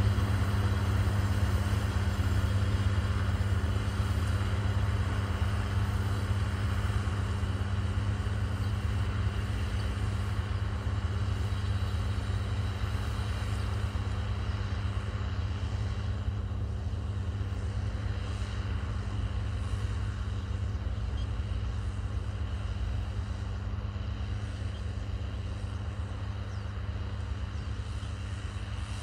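Deutz-Fahr Agrotron X720 tractor's six-cylinder diesel engine running steadily while driving a rotary tiller through the soil. It is a deep, even hum that slowly grows fainter as the tractor works away.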